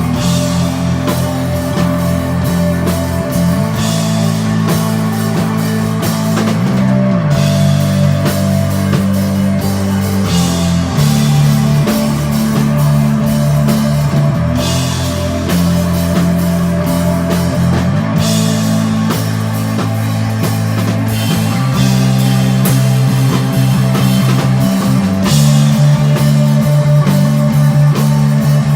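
Live instrumental rock band playing loudly: electric guitar, bass guitar and drum kit. Heavy sustained bass notes change every few seconds, and cymbal crashes come back every three to four seconds.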